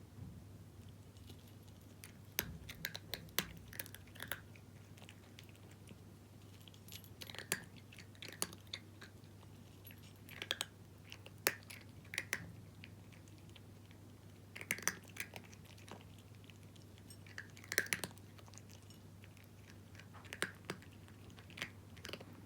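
A cat crunching dry kibble, in short bursts of crisp crunches with pauses of a second or two between them.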